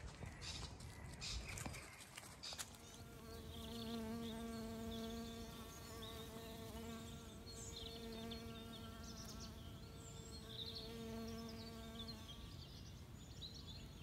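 A flying insect buzzing steadily, starting a few seconds in and fading out near the end, while small birds chirp and twitter.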